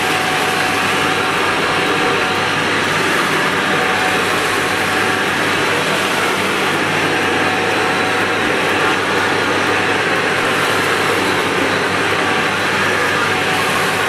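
Shark upright vacuum cleaner running steadily as it is pushed along carpet, its motor and airflow making an even noise with a faint whine.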